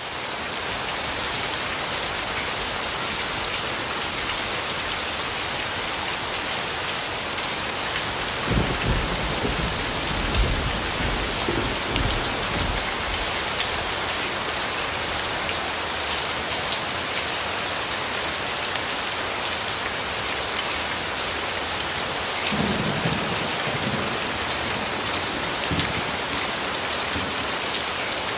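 Steady, heavy rain falling on hard surfaces, with low rolls of thunder rumbling twice: once about a third of the way in for several seconds, and again more briefly near the end.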